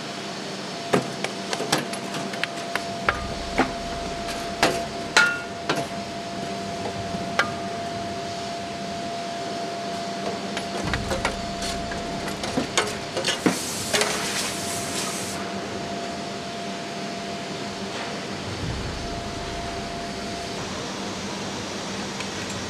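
Hammer strikes on a freshly cast aluminium engine block, an irregular run of sharp metallic knocks that shake loose the leftover casting sand, followed by a hiss lasting about two seconds. A steady machine hum runs underneath and is all that is left after the knocking stops.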